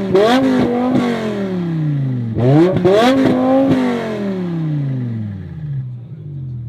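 Modified car engine with an aftermarket exhaust revved twice, the pitch rising sharply each time and falling away slowly. Sharp pops and bangs from the exhaust come with each rev, the loudest on the second. It drops back to idle near the end.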